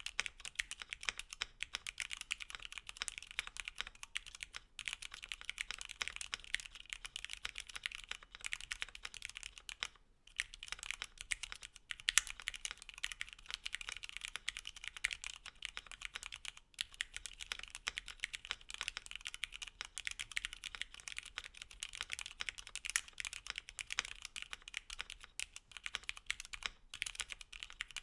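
Continuous fast typing on a Voice65 mechanical keyboard with stock retooled Cherry MX Black linear switches, a PE-foam-dampened plate and PBT keycaps: a dense run of keystroke clacks with a brief pause about ten seconds in.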